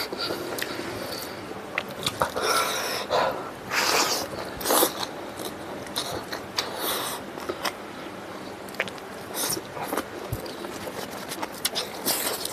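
Close-up eating sounds: a man chewing mouthfuls of rice and smoked pork eaten by hand, with irregular wet clicks and short noisy bursts. Near the end, his fingers work rice on the tray.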